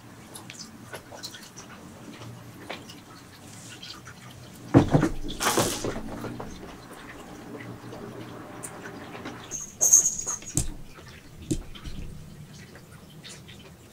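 Cats moving and being handled: rustling with a loud thump about five seconds in, then a few sharp clicks and a short high-pitched sound about ten seconds in.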